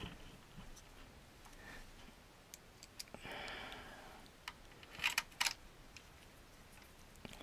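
Faint handling sounds of fingers working a ribbon cable and its plastic connector on a circuit board: scattered small clicks and taps, with a brief soft hiss a little after three seconds and a cluster of sharper clicks about five seconds in.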